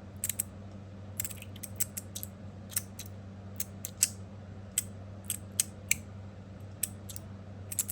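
Sharp, irregularly spaced metallic clicks and clacks from a copper and stainless steel magnetic fidget slider, its plates snapping from one magnet position to the next under very snappy, strong magnets.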